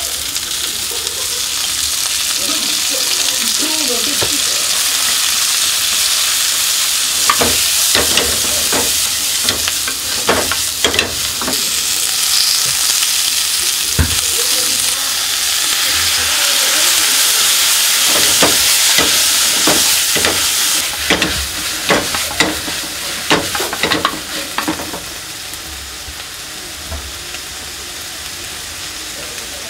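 Sliced cabbage, onion and leek sizzling in a frying pan over a gas flame while being stirred with a wooden spatula. Through the middle, the spatula scrapes and knocks against the pan many times, and the sizzle eases near the end.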